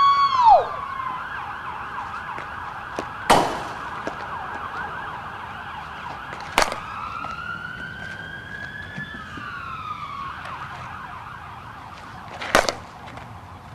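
An emergency vehicle siren wailing, its pitch rising and falling slowly, with three sharp cracks of a softball bat hitting the ball, about three seconds apart.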